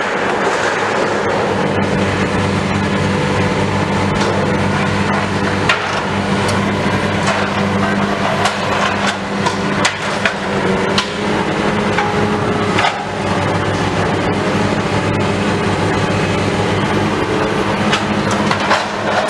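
Heavy demolition machinery with a diesel engine running steadily, with irregular knocks, clanks and crunches of building debris being broken up and dropped.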